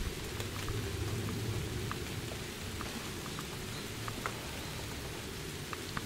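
Light rain falling on dense foliage, with scattered drops ticking, over a steady low rumble of wind on the microphone.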